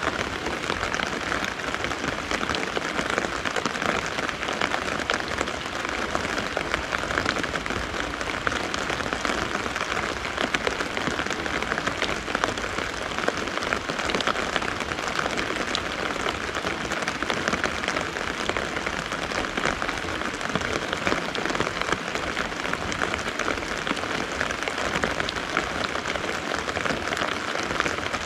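Steady rain falling, with a dense spatter of drops striking the fabric of an umbrella close overhead. It holds an even level throughout.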